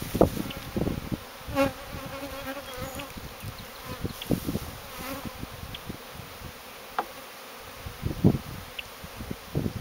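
Swarm of honeybees buzzing around open hives while nucs are transferred in, with one bee droning close by for about a second and a half near the start. A few light knocks of handling are heard among the buzzing, the strongest near the end.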